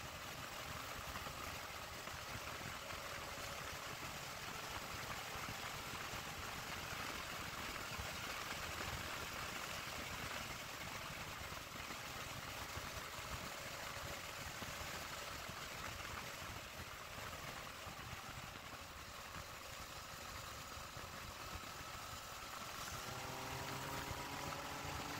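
Wind rushing past a Yamaha Tracer 900 GT motorcycle at highway speed, with its three-cylinder engine underneath. Near the end the engine note rises in pitch as the bike accelerates.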